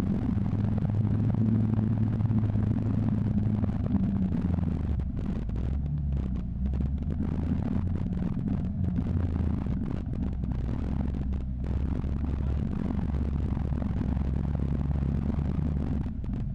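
Engine of an open-top 4x4 running at low speed while it drives over dirt, a steady low drone that shifts a little in pitch.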